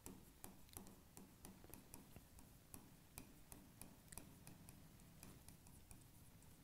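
Faint, irregular clicks and taps of a stylus on an interactive whiteboard screen during handwriting, a few a second, over near-silent room tone.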